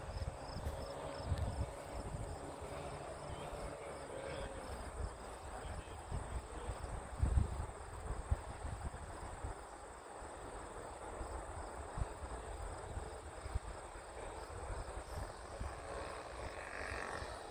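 Distant model airplane's four-stroke glow engine (OS FS-120) droning faintly, its pitch sagging slightly and fading out about four seconds in. After that there is only outdoor noise with irregular low rumbles of wind on the microphone.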